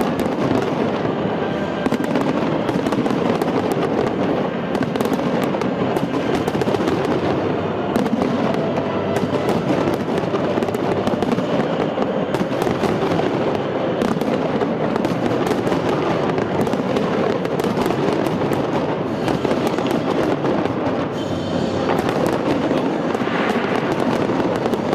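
A large fireworks display with many bursts and crackles in a dense, continuous barrage, and music playing underneath.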